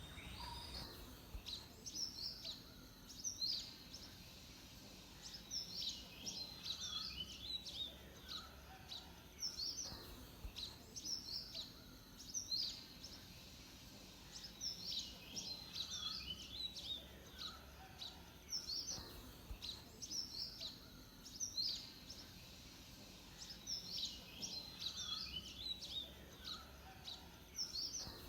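A bird singing, short phrases of quick high chirps repeated every few seconds with brief pauses between them, over a faint background hiss.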